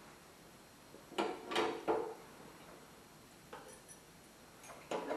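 A short run of clattering knocks and rattles of hard objects being handled about a second in, a faint click in the middle, and another knock near the end.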